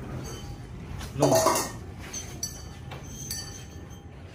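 Stainless steel dog bowl set down on a tiled floor: a clatter about a second in, then a thin metallic ringing that lingers.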